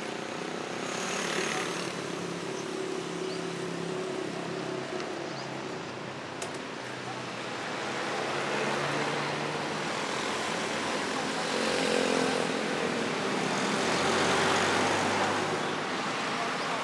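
Roadside traffic: motor vehicles passing on a street, the noise swelling and fading several times over a low engine hum.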